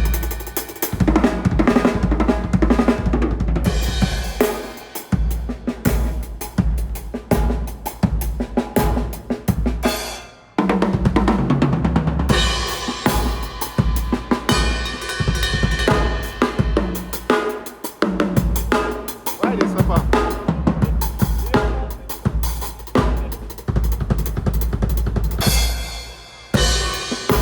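Drum kit played hard in busy grooves and fills: bass drum, snare and cymbals struck in rapid succession. The playing stops briefly about ten seconds in, then carries on.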